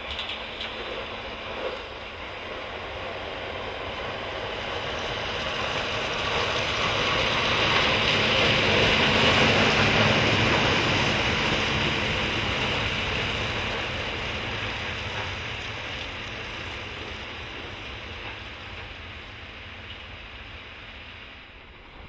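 John Deere 6530 tractor working with its snow plough, driving past: a steady noise of engine and equipment that grows louder, is loudest about halfway through, then fades as the tractor moves away.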